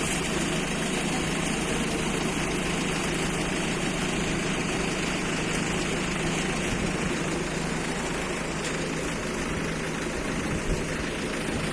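A steady mechanical hum under a constant rushing noise, with one brief thump near the end.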